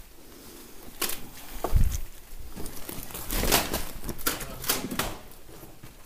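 Footsteps crunching over rubble and debris, with scattered irregular knocks and clatters and a dull thud about two seconds in.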